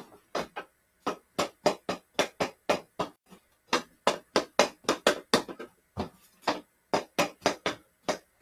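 Hockey stick blade tapping a small hard stickhandling ball back and forth in quick, irregular taps, about four a second, with a couple of brief pauses.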